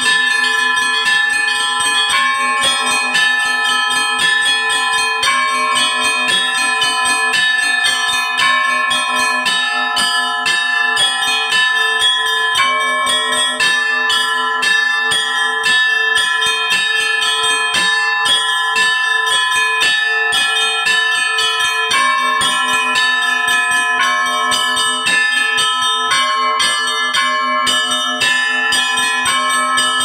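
Russian Orthodox festive bell ringing from a small open belfry: one ringer strikes a row of small bells in a quick, dense rhythm over the sustained ringing of the larger bells. The lowest bell drops out for several seconds midway, then comes back in.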